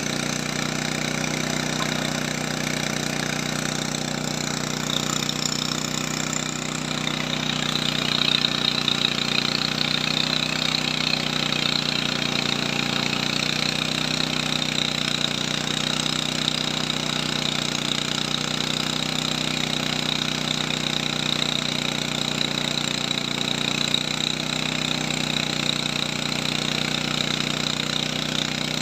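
A machine running steadily with a low hum, joined by a higher whine that grows louder about six to eight seconds in and then holds.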